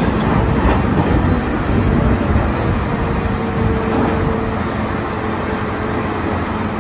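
Caterpillar 992G wheel loader's diesel engine running hard as it lifts and tips a bucket load into a dump truck, with a steady whine through the middle.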